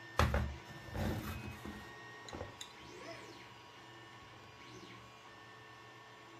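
Clicks and knocks from handling a small metal RC crawler winch and its radio transmitter, loudest in the first second or so. After that a steady faint mechanical hum, with a couple of brief faint whirs that rise and fall in pitch.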